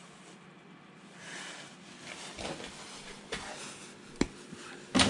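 Electrical wires being handled and fitted into a distribution board: irregular rustling with a few sharp clicks, the loudest just before the end.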